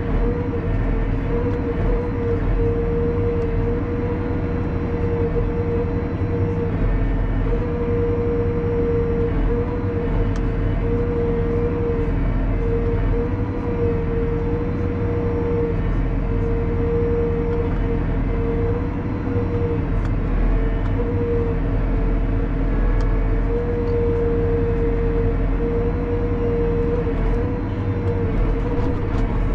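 Valtra 154e tractor's diesel engine running steadily, heard from inside the cab, with a strong steady whine on top as the Kesla 144ND timber crane's hydraulics are worked.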